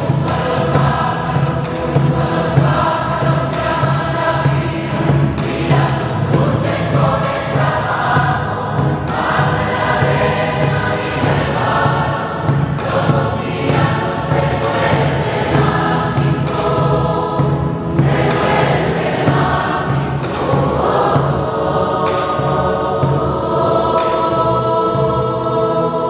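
Mixed choir of men's and women's voices singing a Spanish-language Catholic hymn, with guitars strummed in a steady rhythm. Near the end the voices hold long notes.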